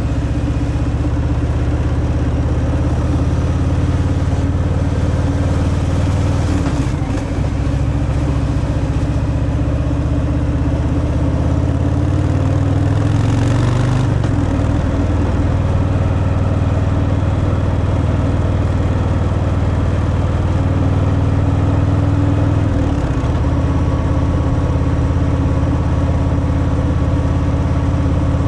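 Harley-Davidson Fat Boy's air-cooled V-twin running through its stock exhaust while riding at a steady pace. The engine note drops briefly about a quarter of the way in, rises and then drops about halfway, and drops again near the end.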